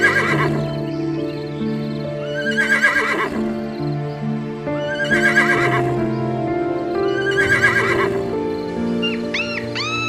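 Horse neighing four times, a call about every two and a half seconds, over background music.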